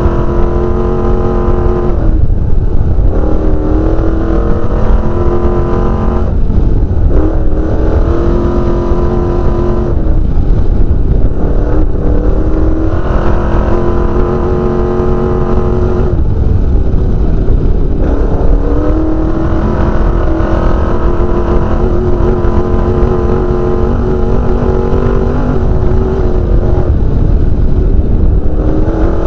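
Off-road desert race car's engine heard from inside the cockpit at speed, over a heavy low rumble. The engine note climbs and falls back in pitch several times.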